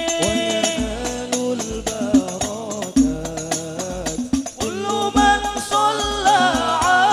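Al Banjari sholawat: several male voices singing a devotional Arabic melody together over the beat of terbang frame drums, with regular deep bass drum strokes.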